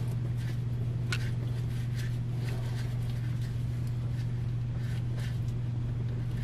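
A steady low hum with faint, scattered clicks and scrapes of hands working a loosened oil filter off an engine.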